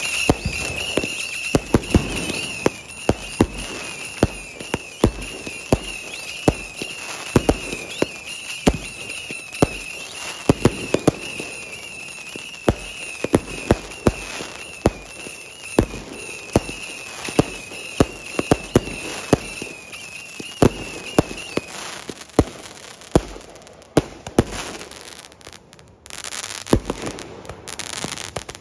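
Fireworks going off in a long series: dozens of sharp bangs at irregular intervals, often one or two a second, thinning out near the end.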